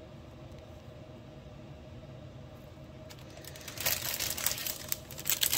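Clear plastic bag of diamond-painting drill packets crinkling and rustling as it is picked up and handled. The crinkling starts about two-thirds of the way in, after a quiet stretch of room tone with a faint steady hum.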